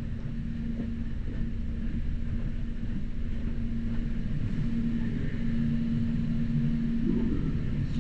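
A steady motor drone with a low rumble and a constant hum that stops near the end.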